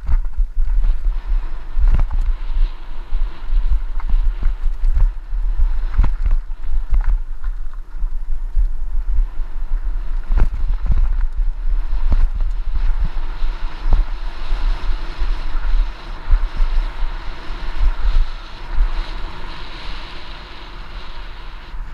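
Wind rushing over the microphone of a helmet camera on a mountain bike descending a rough dirt trail, with a constant low rumble and frequent knocks and rattles as the bike hits bumps. The wind noise grows stronger in the second half.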